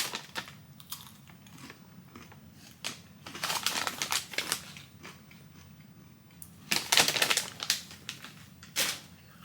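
Several short bursts of crinkling and crunching from snacks and their packaging being handled and eaten.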